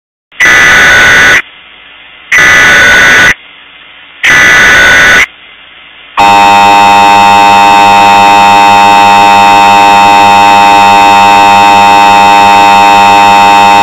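Emergency Alert System tones: three SAME header data bursts, each a harsh, warbling two-note screech about a second long, about a second apart, marking the start of an alert. About six seconds in, the EAS attention signal begins: a loud, steady, harsh two-tone buzz.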